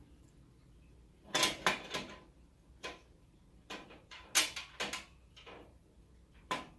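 Small steel rack hardware clinking and clicking: M6 nuts, screws and a rack plate being handled and fitted against the metal rack frame. A quick series of about a dozen sharp clicks and knocks, bunched in two clusters with a last one near the end.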